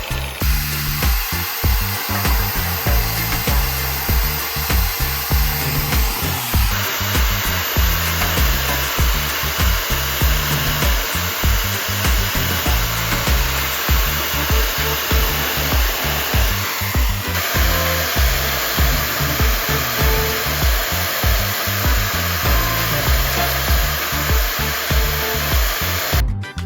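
An angle grinder running steadily, fitted with a CD disc, under background music with a steady beat; the grinder cuts off just before the end, leaving the music.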